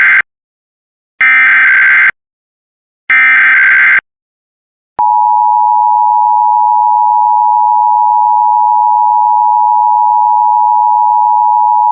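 Emergency Alert System data bursts: the end of one header burst just after the start, then two more buzzy digital bursts of about a second each. About five seconds in, the steady two-tone EAS attention signal (853 and 960 Hz) starts, opening a Required Monthly Test.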